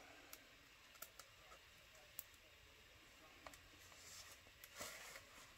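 Near silence: quiet room tone with a few faint clicks, and a soft rustle of the canvas's plastic cover being handled about five seconds in.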